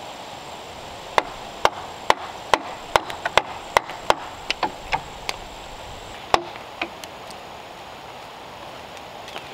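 Wooden mallet striking a chisel cutting into a squared timber: sharp wooden knocks, about two a second. The knocks thin out and stop about seven seconds in.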